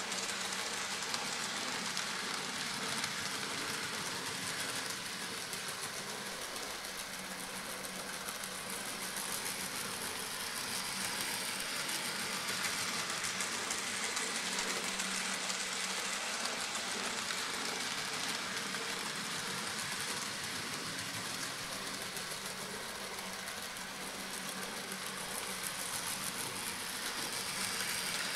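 N gauge model locomotive running unseen on the layout: a steady whir of its small electric motor with the rattle of wheels on the track, getting a little louder near the end as it comes up to the tunnel mouth.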